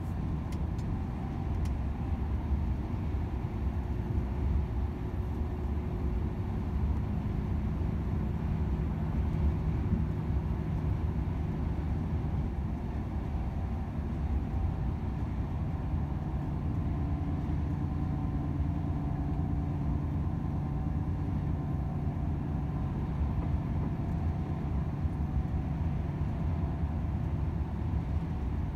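Volvo FH 500 truck driving along: its 13-litre inline-six diesel runs steadily under continuous tyre and road noise.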